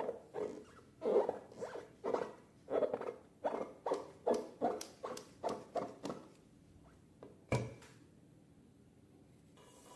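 Slime being squeezed and worked by hand: a run of short squelches, about two to three a second, that stop about six seconds in. One sharp click comes about a second and a half later.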